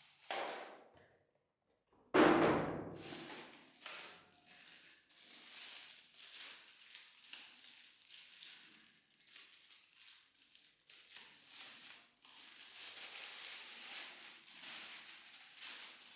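A single thump about two seconds in, then faint rustling and crinkling, like toys and plastic packaging being handled.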